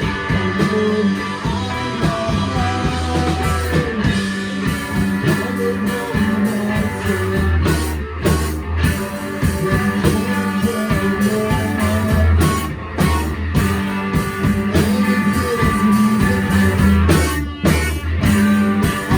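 Rock band playing live: electric guitar and bass over drums, loud and continuous.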